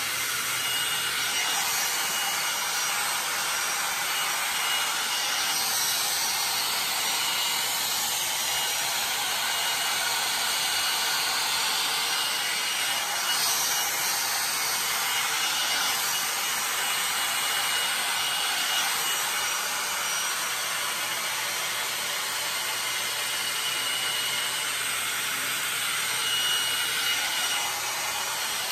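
IKOTE hot-air dryer brush running steadily, a rushing blow of air with a faint motor whine, as it is drawn through a section of long hair. It switches off at the very end.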